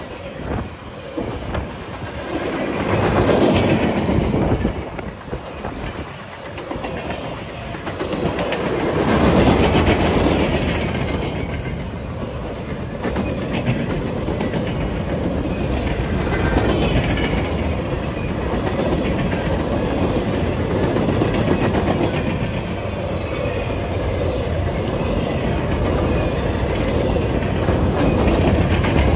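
A long freight train of boxcars and flatcars rolling past close by, its steel wheels running steadily on the rails, with louder swells about three and ten seconds in.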